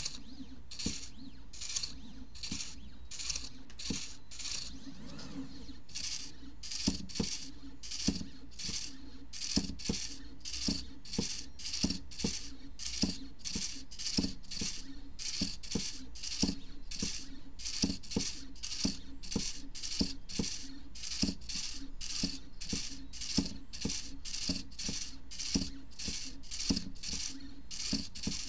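Pen plotter's stepper motors whirring in short, evenly repeated bursts, about two a second, as it draws short hatching strokes, with a light click from the pen-lift servo at each stroke.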